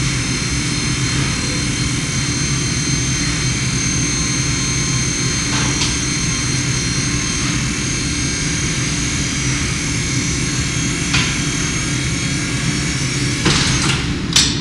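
Piston aircraft engine with propeller running steadily at constant speed on an engine test stand. A few sharp clicks sound over it, the loudest near the end.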